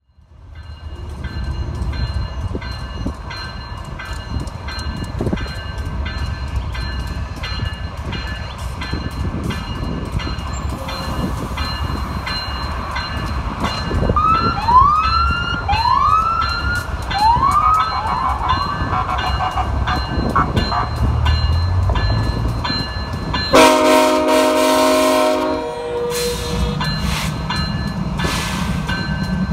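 GE ET44AC diesel locomotive and its train running, a steady low rumble with a run of clicks, and a string of short rising squeals in the middle. Late on, the locomotive's air horn sounds once for about two and a half seconds.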